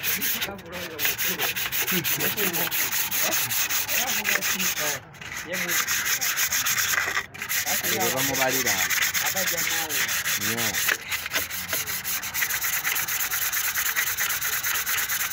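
A green abrasive sheet rubbed rapidly back and forth by hand over a metal cylinder head gasket on a four-cylinder diesel engine block: a steady scratchy scrubbing, broken by short pauses about five and seven seconds in.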